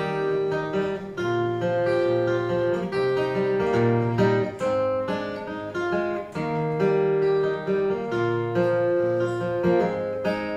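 Solo acoustic guitar playing chords over a moving bass line at an unhurried pace, the instrumental introduction to a song.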